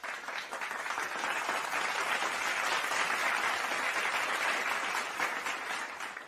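Crowd applause: many hands clapping in a dense, steady patter that dies away near the end.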